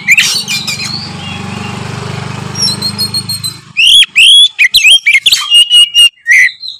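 Oriental magpie-robin singing in full voice: loud, sharp whistled notes and calls sweeping up and down, in quick succession. For about three seconds near the start a low steady hum covers the song, which comes back at full strength about four seconds in.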